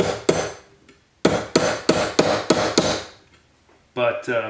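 Ball-peen hammer striking the edge of a silver cuff held on a steel bench block, widening and thickening the edge. One ringing blow at the start, then from about a second in a quick run of about eight metallic strikes, some four a second.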